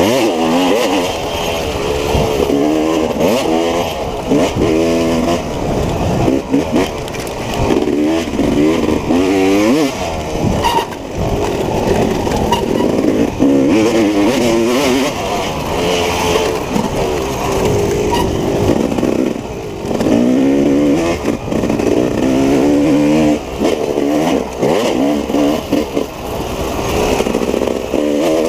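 Dirt bike engine being ridden hard off-road, its pitch rising and falling again and again as the throttle is opened and closed through the gears, over a constant rough noise.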